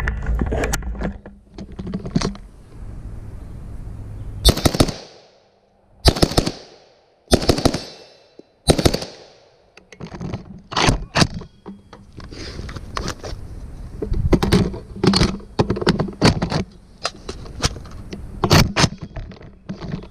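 Palmetto State Armory AK-103 rifle firing 7.62x39 rounds, each shot a sharp crack with an echo. A few shots come about a second and a half apart around the middle, and the second half is rapid fire at several shots a second.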